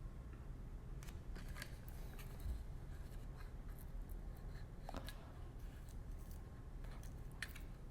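Plastic packaging being handled and pulled off by hand: scattered light crinkles and clicks, with sharper clicks about five seconds in and near the end, over a low steady hum.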